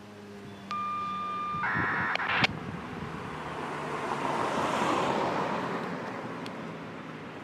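A vehicle passes by, its road noise swelling for a couple of seconds and then fading. Before it there is a short steady high beep about a second long, then a brief hiss that cuts off with a sharp click.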